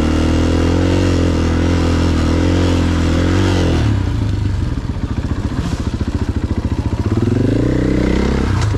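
A 450cc four-stroke single-cylinder dirt bike engine heard from on the bike, held at steady part-throttle revs. About four seconds in it drops to a low, chugging rev as the throttle comes off, then picks up again shortly before the end.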